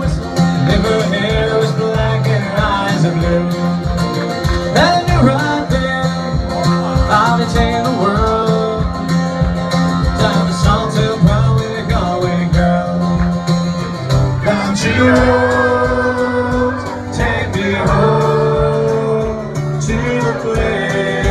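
Live pub band: a man singing a country-style song over strummed guitar with a steady beat.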